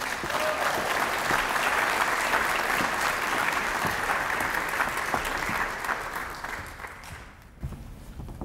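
Audience applauding, then dying away about six to seven seconds in.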